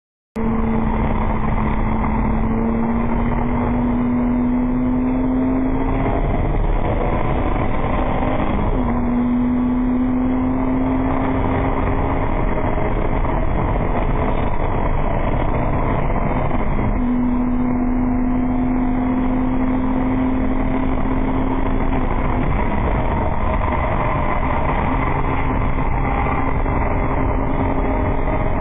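BMW E30 320i race car's straight-six engine at full throttle, heard from inside the stripped cabin. Its pitch climbs slowly through long pulls and drops back twice, about 8 and 17 seconds in, over a steady rush of wind and tyre noise.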